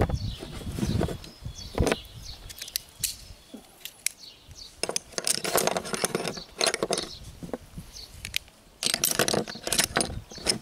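Carabiners and aluminium rope pulleys clinking and rattling as they are handled and clipped together, with rope rustling as it is threaded through the pulleys; scattered sharp clicks with bursts of rustle in between.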